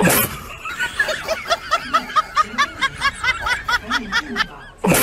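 High-pitched snickering laughter: a rapid run of short, rising-and-falling laughs, about four a second, that stops shortly before the end.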